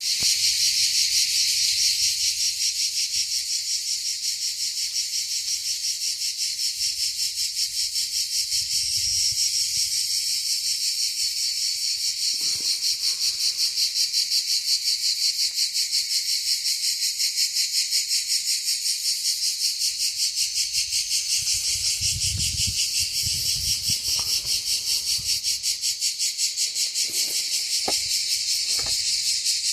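Cicadas singing in chorus: a loud, continuous, shrill buzz with a rapid, even pulse.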